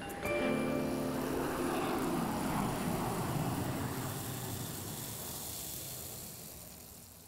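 End of the soundtrack: a held chord in the first second or two dissolves into a rushing, airy wash of noise that swells and then fades out slowly.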